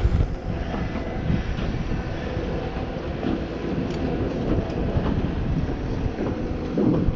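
Engine running steadily, with strong wind buffeting the microphone.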